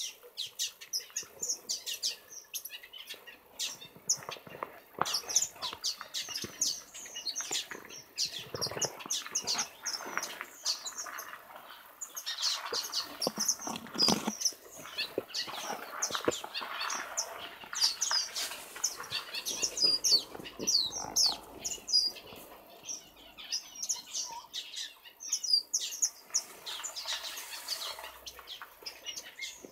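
A mixed aviary of small finches and waxbills chirping and calling together: a continuous busy chatter of many short, high calls overlapping.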